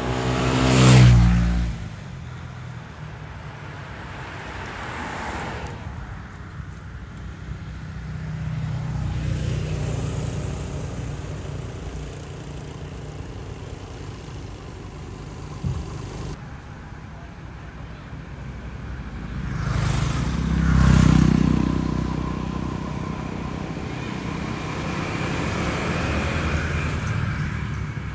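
Road traffic: motor vehicles passing close by, the loudest about a second in and again around twenty seconds in, over steady traffic noise.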